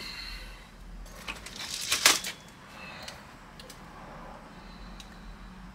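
Clicks and light metallic clatter from the parts of a KJ Works KP-19 airsoft pistol being handled during disassembly. The clatter is loudest in a quick cluster about two seconds in, with a few scattered clicks after.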